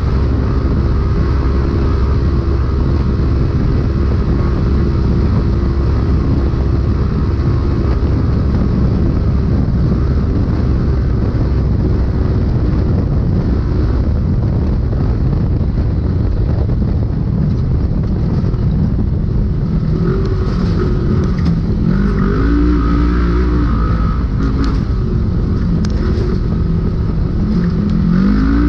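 Polaris RZR UTV engine running hard at a steady pitch, heard from inside the vehicle with loud road and wind noise. In the last third the engine note drops and climbs back up a few times as the vehicle slows and speeds up again, with a few sharp knocks from the chassis.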